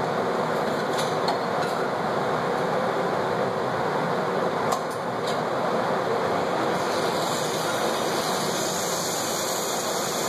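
Steady whirring shop machinery noise, with a few light clicks about a second in and again about five seconds in.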